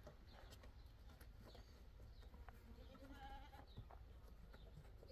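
A goat bleating faintly, once about three seconds in, over an otherwise quiet background with a few light clicks.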